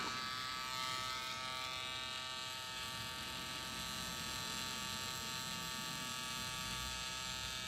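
Permanent-makeup pen machine running with a steady, even buzzing whine as its needle works over an eyebrow during removal of an old eyebrow tattoo.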